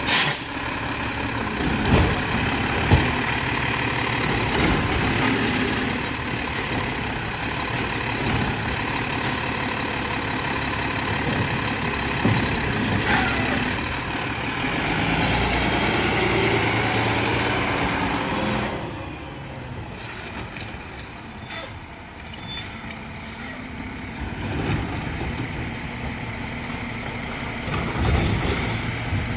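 Mack LEU Labrie Helping Hand side-loader garbage truck running steadily, with a short sharp air-brake hiss near the middle. It then drops quieter, with a few small clicks and knocks.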